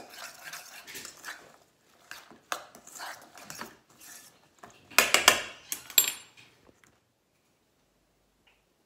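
A spoon stirring and scraping through chopped mango salsa in a stainless steel mixing bowl, in irregular clicks and scrapes, with a louder run of clinks against the bowl about five seconds in.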